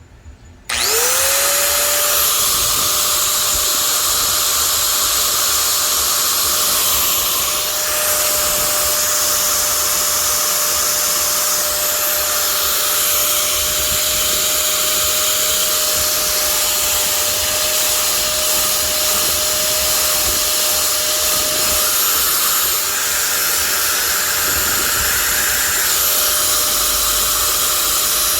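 Makita electric angle grinder switched on about a second in: the motor whines up to full speed and runs steadily, freshly repaired after sparking and popping inside.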